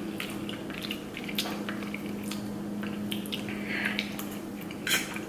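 Eating sounds close to the microphone: forks tapping and scraping on plates, and wet chewing of a mouthful of rice, in scattered small clicks with one louder click near the end.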